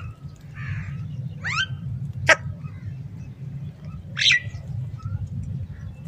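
Crows giving two short, sharply rising calls, about a second and a half in and again about four seconds in, with a single sharp tap between them, the loudest sound, over a steady low hum.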